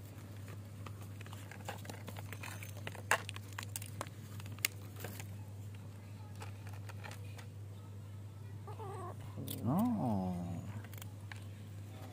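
Kittens eating dry kibble from a plastic tray, with scattered sharp clicks in the first few seconds over a steady low hum. About nine seconds in a kitten meows, a short call followed by a longer one that rises and falls in pitch.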